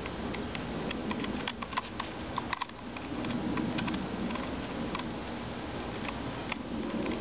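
A small screwdriver working the screw terminals of a solar charge controller as wires are fastened in: light, irregular clicks and ticks, densest in the first few seconds, over a steady background hiss.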